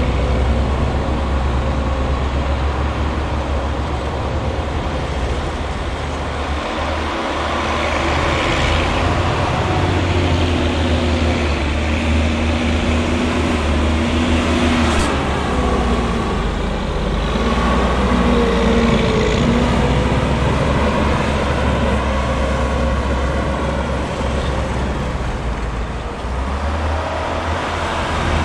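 Leitner LH500 snowcat's MAN D2866 six-cylinder diesel running under load as the tracked machine pushes and spreads chopped maize silage. There is a deep steady rumble, and the engine pitch rises and falls as the load changes.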